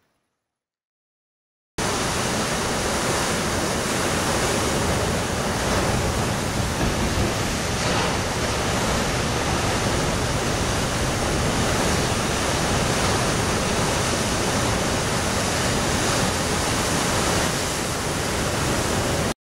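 Steady rushing noise of wind and a choppy sea breaking on rocks. It starts suddenly after about two seconds of silence and cuts off abruptly.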